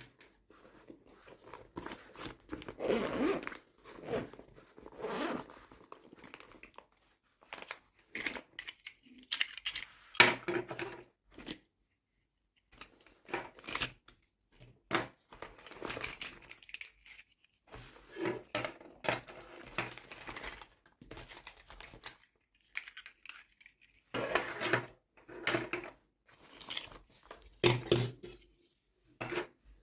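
Toy packaging being torn open and crinkled by hand, in irregular bursts of tearing and rustling with short pauses between.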